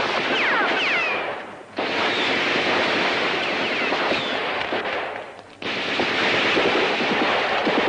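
Dense, continuous automatic gunfire from a film soundtrack, with a few falling whines near the start. It fades away twice and cuts back in abruptly.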